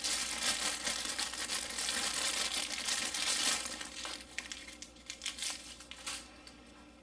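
Clear plastic bag crinkling as a pair of compact binoculars is pulled out of it. The crinkling is dense and continuous for about three and a half seconds, then thins to a few scattered crackles and dies away near the end.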